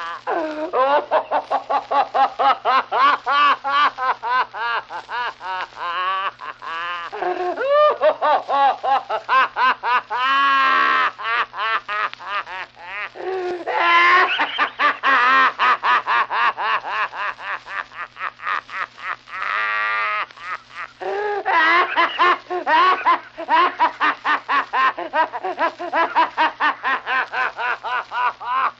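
An old man laughing heartily: long runs of rapid ha-ha-ha pulses, about four a second, broken by short pauses for breath a few times.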